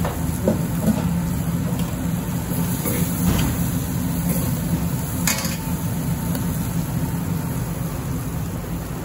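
A steady low rumble of background noise, with a few light clinks and scrapes of a metal ladle on a large steel griddle pan as chickpeas are spooned onto a flatbread. The sharpest clink comes about five seconds in.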